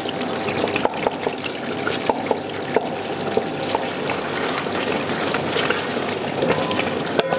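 Chicken and tomato curry sizzling and bubbling in ghee in a hammered copper karahi as it is stirred with a wooden spatula, a steady crackle of small pops.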